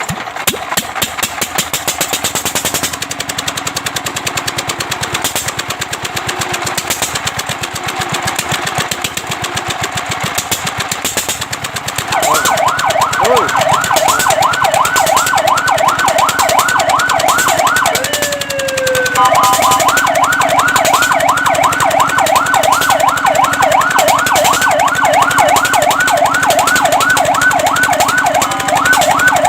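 A fire truck siren starts partway through in a fast yelp, a rapid repeating up-and-down wail. It breaks once for a falling sweep, then the yelp resumes. Before the siren, a vehicle engine runs with a rapid clatter.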